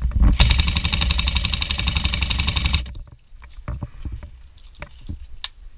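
Airsoft gun firing a sustained full-auto burst of about two and a half seconds, a fast even rattle of shots, followed by a few scattered knocks and clicks.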